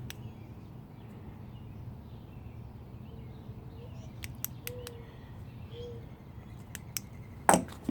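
Small sharp clicks and a louder knock near the end from items being handled in a pickup's centre console, over a steady low hum.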